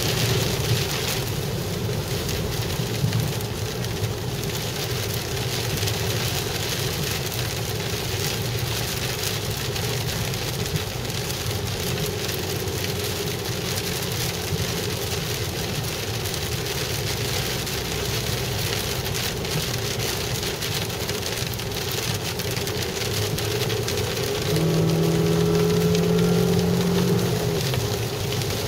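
Heavy rain hitting the roof and windshield of a moving car, heard from inside the cabin, with road noise underneath. Near the end a steady tone sounds for about three seconds over the rain.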